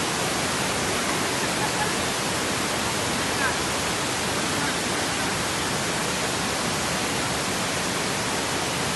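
Steady rushing of white water as a swollen river pours over stepped rock cascades.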